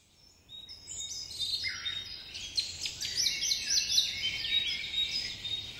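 Birds chirping and singing, many short, quick downward-sweeping calls overlapping one another, starting about half a second in.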